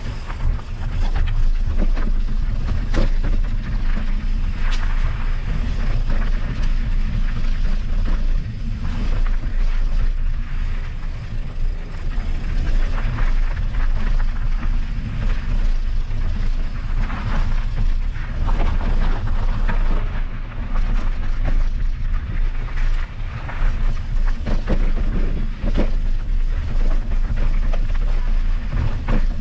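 Wind rumbling on a riding mountain biker's camera microphone, over tyre noise on a dirt trail. Scattered knocks and rattles come from the bike going over bumps.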